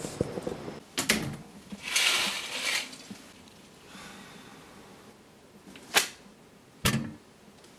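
Indoor handling noises: a sharp knock about a second in and a rustling scrape a second later, then a thick stack of paper files set down on a wooden table with a sharp thump about six seconds in, followed by another knock.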